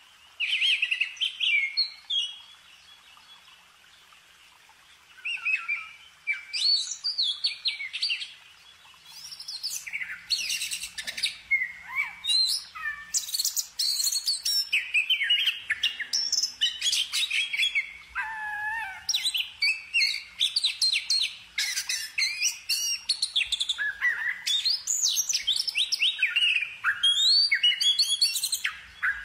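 Songbirds singing: a short burst of quick chirps about a second in and another around six seconds, then dense, overlapping chirping song from about nine seconds on.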